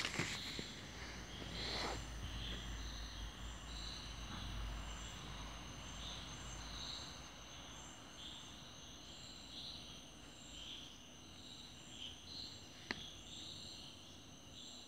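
Insects chirping and trilling steadily in the background, high-pitched and continuous. A few handling knocks near the start and a single sharp click near the end.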